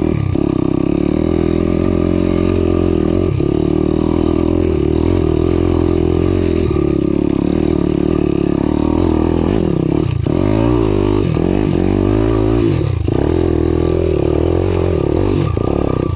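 Daytona 190 four-valve pit bike's single-cylinder four-stroke engine running hard under load on a steep hill climb. The revs dip and rise again about ten seconds in and once more about three seconds later.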